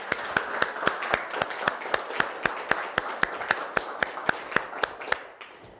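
Small audience applauding, with one person's claps standing out close by at a steady pace of about three a second; the applause fades out near the end.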